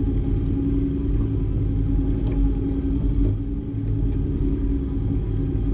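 An engine running steadily at an even speed, a constant low hum over a rumble.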